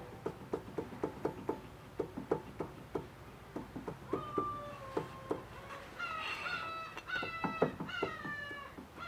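Regular clicking, about four clicks a second. From about four seconds in, a cat meows several times, each call short and falling in pitch.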